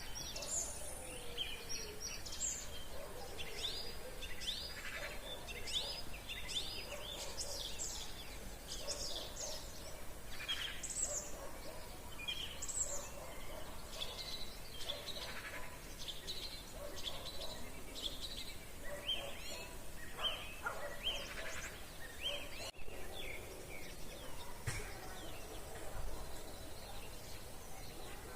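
Chorus of many songbirds singing at once in spring woodland: short whistled notes and trills overlapping throughout.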